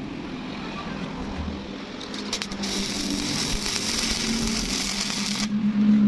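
Electric arc welding on steel reinforcing bar: a crackling hiss starts about two seconds in and cuts off abruptly about half a second before the end, over a steady low hum.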